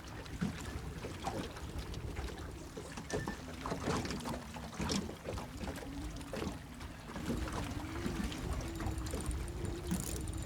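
Faint wavering engine hum from about three seconds in, like a boat motor running out on the water, over water lapping and scattered small knocks.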